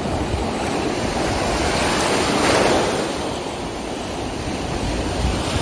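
Ocean surf washing ashore, with wind buffeting the microphone; the wash swells louder about two and a half seconds in.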